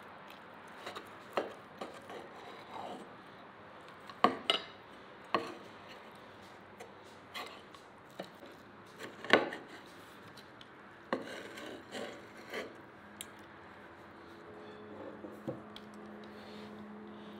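Knife and fork cutting a grilled beef steak on an earthenware plate. The knife saws and scrapes through the meat, with scattered clinks of steel on the plate, the loudest about nine seconds in.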